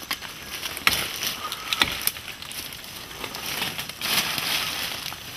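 Two sharp cracks of wood about a second apart, then rustling of leaves and stems, as a liana is broken off in dense forest undergrowth.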